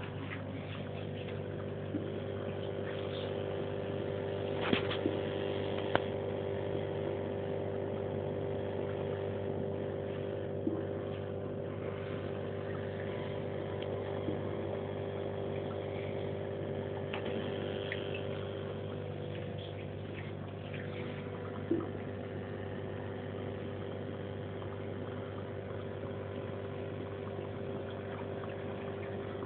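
Aquarium pump humming steadily with water trickling and bubbling in the fish tank, joined by a few light knocks near the start and once later on.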